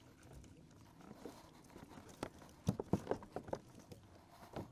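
A quick run of hollow knocks and clatter against a plastic fishing kayak as a landing net and a just-caught fish are brought aboard, starting about halfway through, with one more knock near the end.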